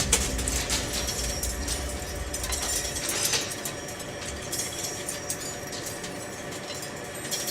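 A machine running steadily with scattered sharp metallic clinks and ticks, as metal is being machined; background music fades out near the start.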